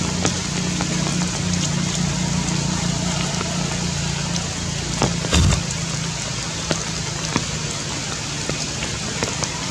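Steady rain hissing and pattering, with scattered drop clicks and a low steady hum underneath. A single thump comes a little after five seconds in.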